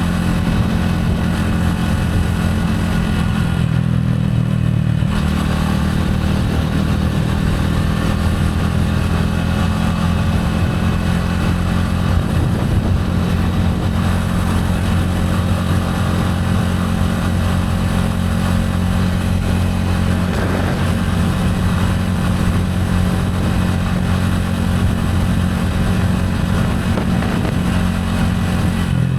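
Gilera AC4 motorcycle engine running steadily while riding, with a brief change in its note about four seconds in.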